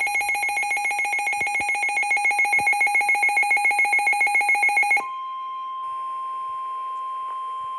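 A Midland weather radio sounds its alert alarm, a rapid pulsing beep about eight times a second, for about five seconds. It then switches to the NOAA Weather Radio 1050 Hz warning alarm tone, one steady pure tone through the radio's speaker, which signals an incoming severe thunderstorm warning.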